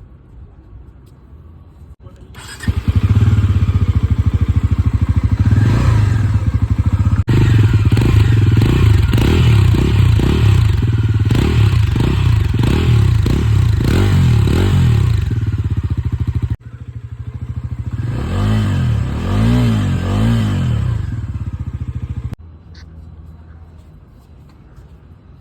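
Bajaj Pulsar NS400Z's single-cylinder engine running through its exhaust, coming in loud about two and a half seconds in and revved repeatedly, the pitch swelling up and down with each blip of the throttle. About two-thirds of the way through it drops abruptly to a quieter level with about three more rev blips, then falls back low near the end.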